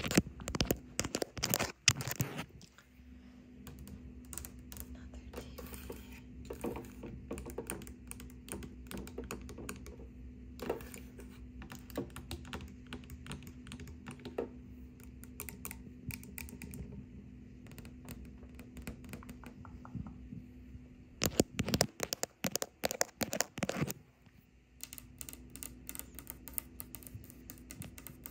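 Long painted fingernails tapping and clicking rapidly, in fast keyboard-like runs: on a TV remote's plastic buttons through the middle, then on a desk surface near the end. Louder clusters of tapping come near the start and about three quarters through, and a faint steady hum lies under the tapping for much of the middle.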